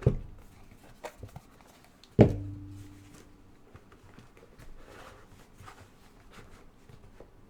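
Two knocks of objects set down on a table, the second louder with a short low ring after it. Light clicks and rustling of handling come between and after them.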